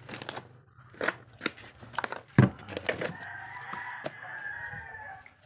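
A few sharp knocks and clicks, the loudest about halfway through, then a rooster crowing in one long call of about two seconds near the end.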